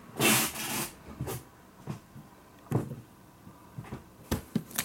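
Handling noises: a brief rustle near the start, then scattered knocks and clicks, several close together near the end.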